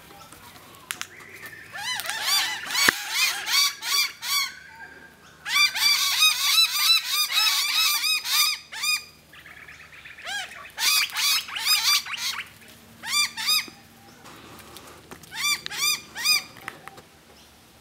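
Birds at a feeding spot squawking in bursts of rapid, repeated harsh calls, with short lulls between the bursts.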